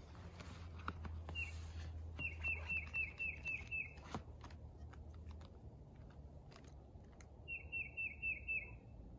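A wild bird singing two quick runs of short downward-sliding notes, about five a second: the first about two seconds in, the second near the end. Scattered soft clicks and a low steady rumble lie underneath.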